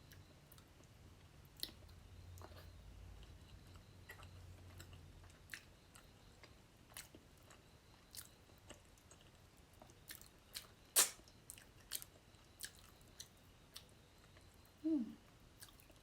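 Close-up mouth sounds of a person eating fish curry: quiet chewing with scattered wet clicks and lip smacks, the loudest about eleven seconds in.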